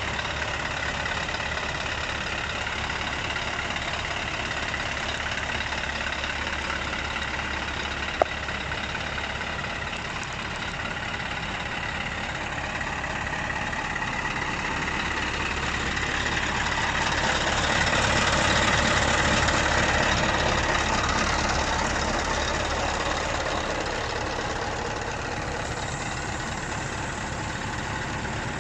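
Scania 164L 480's V8 diesel engine idling steadily, growing louder for several seconds about two-thirds of the way through. A single sharp click about eight seconds in.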